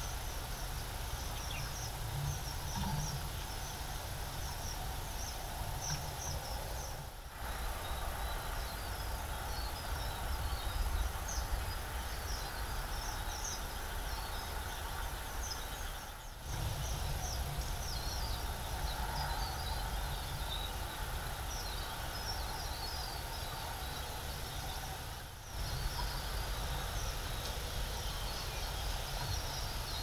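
Outdoor ambience: scattered faint high-pitched chirps over a steady low rumble. The sound dips briefly three times.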